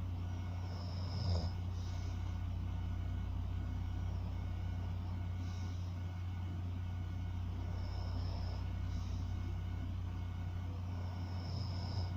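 A sleeping person snoring lightly, a breath roughly every three to four seconds, over a steady low hum. A brief thump comes about a second in and another near the end.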